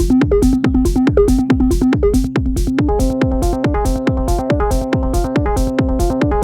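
Electronic dance music played live on hardware synthesizers and a groovebox: a steady kick drum and hi-hats under a repeating synth sequence, which picks up higher notes about three seconds in.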